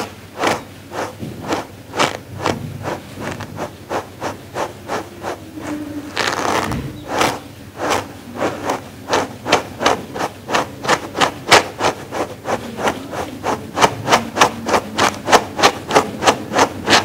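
Dog grooming brush stroked repeatedly through a fleece pad: short brushing strokes, about two to three a second and quicker toward the end, with one longer stroke about six seconds in.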